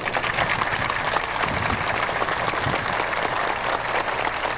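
Large audience applauding, many hands clapping at once in a steady, even patter.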